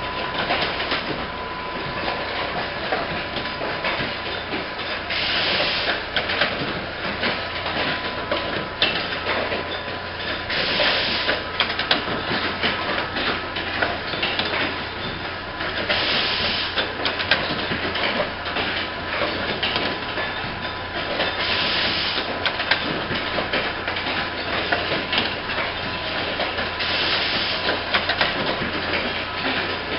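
Automatic insulin syringe assembly machine running with a continuous rapid clatter of its mechanisms and parts. A short hiss of pneumatic air exhaust comes about every five and a half seconds as its cylinders cycle.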